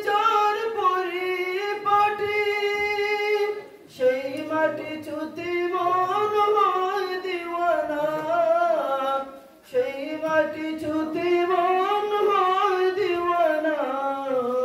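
A child's high voice reciting a sura of the Qur'an in a melodic chant. It runs in three long, drawn-out phrases with a brief pause for breath about four seconds in and again near ten seconds.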